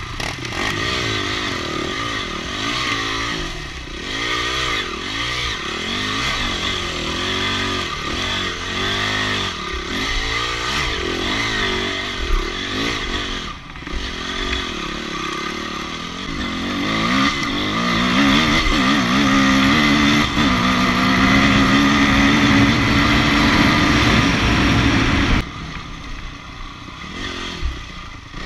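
Enduro motorcycle engine revving up and down in quick throttle bursts. About halfway through it is held at higher, steadier revs for several seconds, then drops off suddenly near the end.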